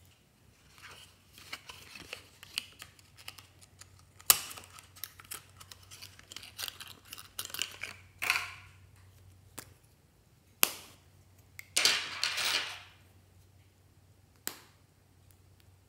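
Handling noises from a small plastic tube being worked open with a craft knife. Sharp clicks and taps, a few short scraping rasps, and one longer rasp lasting about a second, about twelve seconds in.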